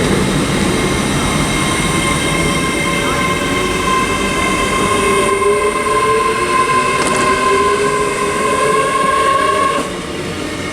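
Great Western Railway Hitachi Class 800 train pulling slowly out of the platform, a steady whine of several tones rising gently in pitch as it gathers speed. The sound drops away suddenly near the end.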